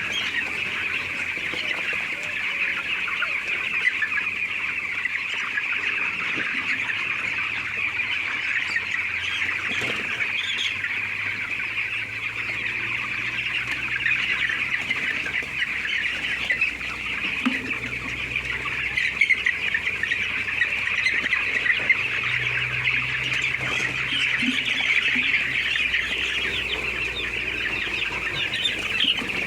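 A large flock of chickens in a poultry house calling all at once, a dense, unbroken chatter of clucks and cheeps. A faint low hum joins in partway through.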